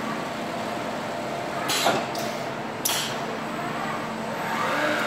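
Steady hum of a robotic bag-palletizing cell and its conveyor, with two short, sharp hisses of compressed air about a second apart near the middle, typical of the pneumatic gripper's valves venting. A whine rises and falls near the end as the robot arm moves.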